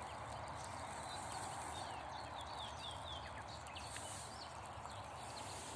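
Small songbirds chirping and singing in quick, short falling notes over a steady background hiss.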